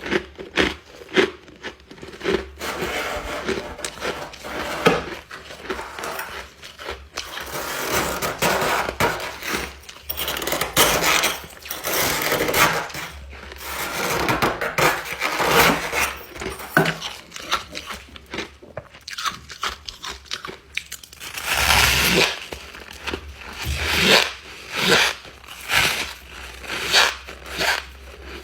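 Ice being bitten and chewed close to the microphone: a run of dense, irregular crunches and crackles, with louder clusters of crunching in the middle and near the end.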